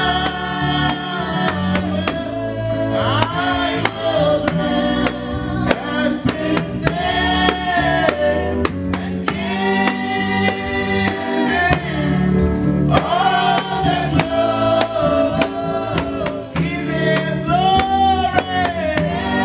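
Live gospel worship song: a woman sings lead through a microphone in long held phrases, joined by other voices, over a steady percussion beat.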